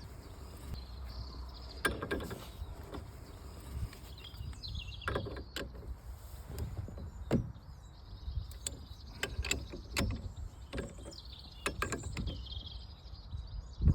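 Scattered clicks and clinks of metal parts being handled on a steering column as a steering wheel quick-release hub and its nut are fitted.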